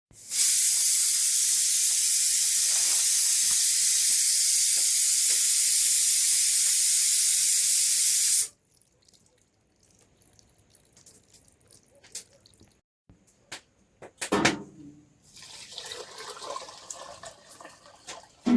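Water running in a steady hissing stream, which cuts off abruptly about eight and a half seconds in. Faint scattered knocks follow.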